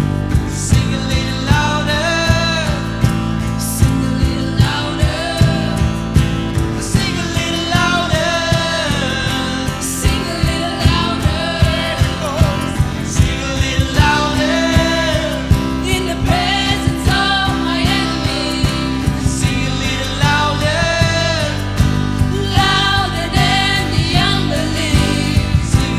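A song with a solo singing voice over band accompaniment and a steady drum beat.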